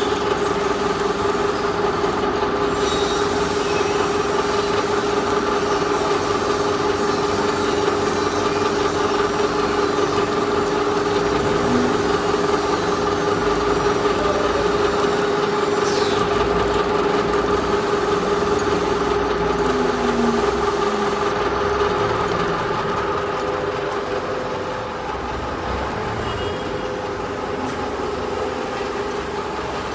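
Veneer glue spreader machine running: its drive motor and rollers make a steady mechanical hum with a constant held tone and no breaks.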